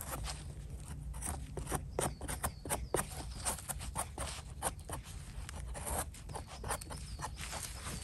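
A small knife scraping and paring the stem of a freshly picked bolete mushroom: a quick, irregular run of short scrapes and clicks.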